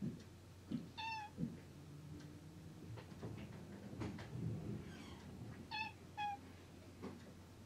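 Domestic cat meowing: one call about a second in, then two short meows close together near the end, with a few soft bumps and knocks between.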